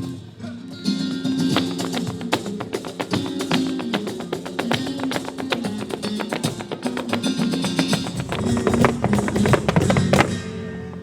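Flamenco music on acoustic guitar, with rapid strummed and plucked strokes over held notes. It fades out shortly before the end.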